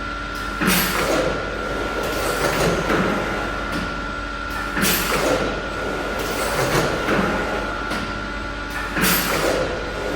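Automatic octopus (rotary carousel) screen printing machine running through its print cycle, repeating about every four seconds: a sharp hissing burst with clunks, then smaller knocks, over a steady whine.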